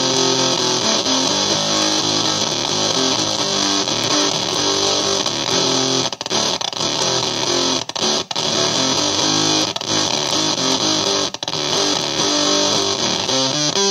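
Electric guitar playing a heavy drop-D riff through a Basic Audio Pendulum fuzz pedal in oscillation mode, giving a warm fuzz with a continuous, stuttery crackle over it. The sound drops out briefly a few times in the second half.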